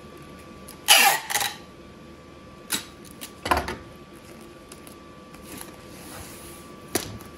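Handheld packing-tape gun sealing a cardboard box: a loud rasp of tape pulled off the roll and pressed along the box about a second in. A few sharp clicks and knocks follow, with one heavier thud about halfway through as the dispenser is set down on the bench. A faint steady whine sits underneath.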